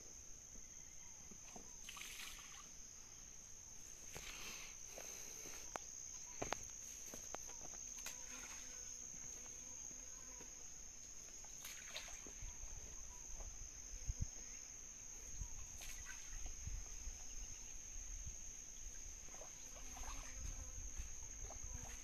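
Steady high-pitched insect trill from the surrounding brush, with a few scattered light clicks and some low rumble in the second half.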